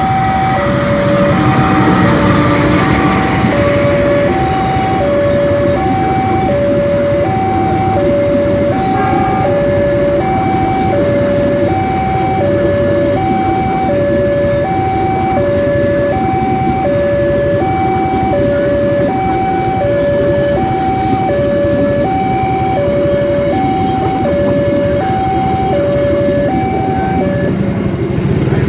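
Level-crossing warning alarm sounding two alternating tones, high then low, each lasting about two-thirds of a second, over the steady noise of a diesel-hauled passenger train passing on the rails.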